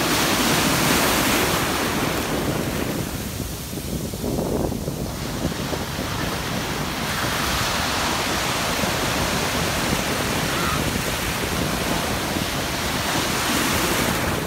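Ocean surf breaking and washing up the beach, a steady rushing that eases briefly about four seconds in and then builds again, with wind buffeting the microphone.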